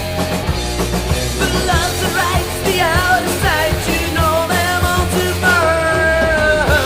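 Rock music with drums and a singing voice that comes in about a second and a half in and ends on a long held note.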